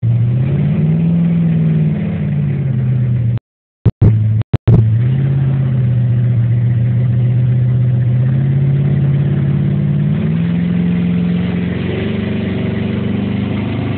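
1964 Chevrolet Impala V8 running through open headers, heard from inside the cabin while driving, its note rising as it pulls away near the start and again about ten seconds in. The owner says the car has a bad carburettor and questionable timing. The sound cuts out for about a second a few seconds in, broken by a couple of sharp cracks.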